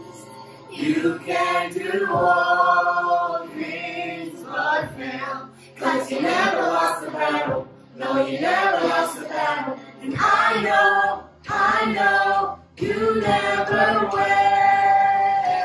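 A family group of men's, women's and children's voices singing a worship song together, in phrases with short breaths between them, holding a long note near the end.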